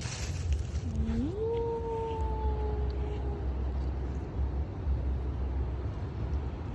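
A single drawn-out animal call about a second in: it slides up in pitch and then holds for about two seconds, slowly sagging, over a steady low rumble.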